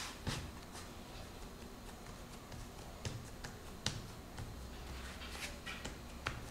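Faint scattered taps and clicks of hands pressing and patting a ball of cornmeal bread dough flat on a floured wooden cutting board, over a low steady hum.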